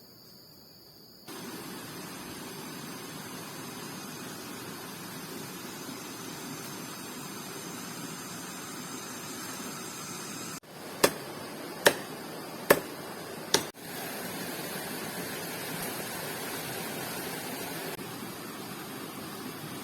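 Crickets chirping for about a second, then a steady rushing noise. About halfway through, four sharp knocks come a little under a second apart.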